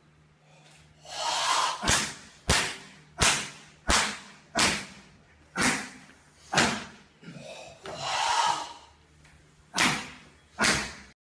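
A Goju-ryu karate student's forceful breathing drill: a longer drawn breath about a second in and again near eight seconds, and nine short, sharp, hissing exhalations that start abruptly and die away quickly, spaced unevenly.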